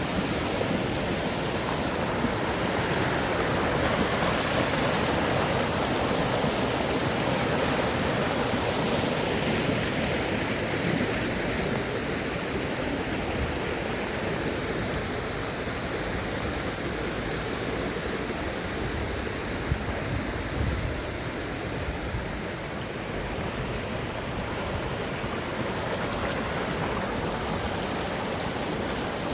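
Mountain stream rushing over rocks, a steady flow of water that eases a little in the second half.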